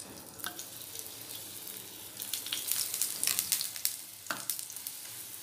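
Cooking oil sizzling and crackling on a hot nonstick tawa around a frying beetroot paratha, just after the oil is poured on. The hiss starts at once, with sharp pops of spitting oil that grow busier about two seconds in.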